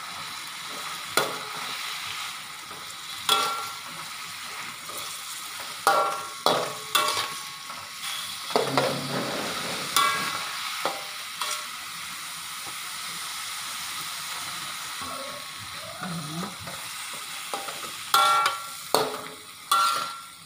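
Pumpkin leaves and white mushrooms sizzling in a hot metal pan while a metal spatula stirs them, clanking and scraping against the pan about a dozen times.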